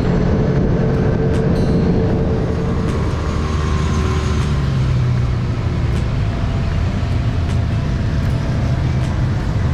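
Side-by-side UTV engine running while the machine drives along, its low drone shifting in pitch partway through, with a few sharp clicks and knocks over it.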